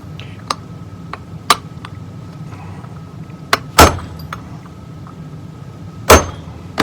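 A hammer striking a punch, driving steel check balls down into an aluminum transmission part until they sit flush. There are several light taps and then two hard blows, one a little under two-thirds of the way in and one near the end.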